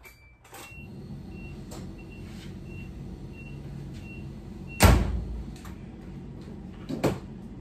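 A 1995 Nissan D21 pickup's warning chime beeping, about three short beeps every two seconds, with the ignition key turned on, over a low steady hum. A loud thud comes about five seconds in, and the chime stops there; a smaller knock follows near the end.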